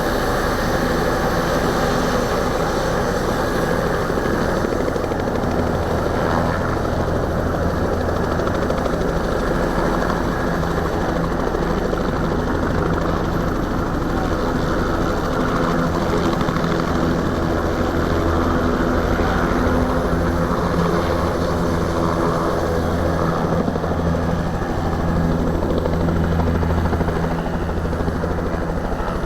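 Bell 206B-3 JetRanger helicopter running: its turbine engine and rotor give a steady, loud, continuous drone with a low, even beat.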